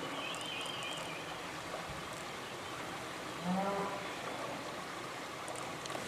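Outdoor ambience: a steady rushing background noise, with a brief high warbling bird call shortly after the start and a short low call about three and a half seconds in.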